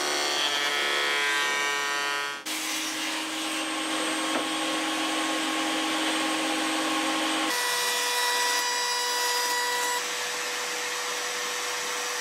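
Electric woodworking machines running in a run of short clips joined by abrupt cuts, beginning with a Femi planer-jointer surfacing a wooden board. Each clip is a steady running noise with a steady tone, and the tone changes suddenly about two and a half, seven and a half and ten seconds in.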